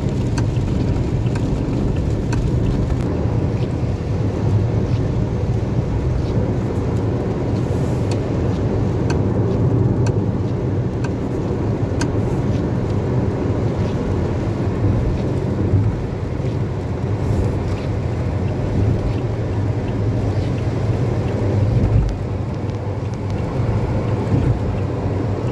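Steady road noise inside a car cabin at highway speed on a wet road: tyre and engine rumble with the hiss of spray, and a few faint ticks scattered through it.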